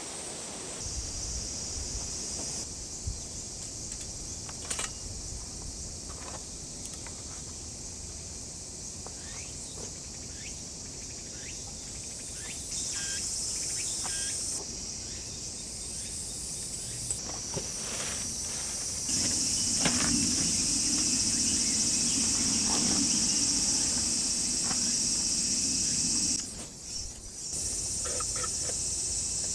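Crickets and other insects chirring in a steady high chorus, with scattered small clicks and rustles. A low hum joins in for several seconds past the middle.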